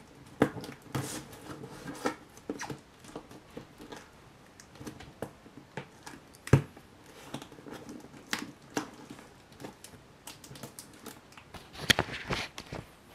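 Cardboard shipping box being handled and shifted about on a wooden shelf: scattered taps, scrapes and rustles, with one sharp knock about six and a half seconds in and a short cluster of scraping near the end.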